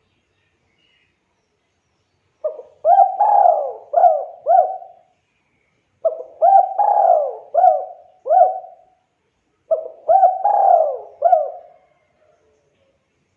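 Spotted dove (tekukur) cooing: three phrases of four or five low, rising-and-falling coo notes each, a few seconds apart.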